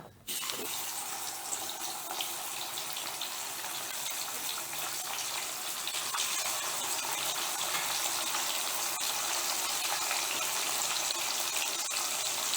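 Masala-marinated parrot fish pieces sizzling as they fry in hot oil. The sizzle starts suddenly as the fish goes into the oil and then runs as a steady hiss, growing slightly louder.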